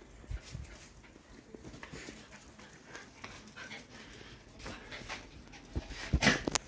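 Patterdale and Jack Russell terriers playing on a stone-tiled patio: scattered soft dog sounds and scuffs of movement, with a quick run of louder knocks about six seconds in.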